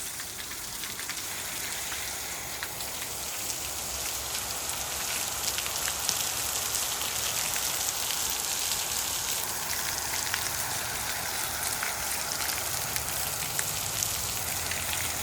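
Water running from a plumbing tap or outlet and splattering steadily onto a hard surface, a dense hiss with fine droplet patter. It grows a little louder over the first few seconds, then holds steady.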